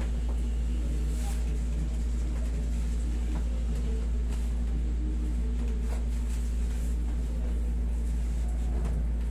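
A steady low hum throughout, with faint soft brushing sounds now and then as hands press and rub on the back of a cotton shirt during a back massage.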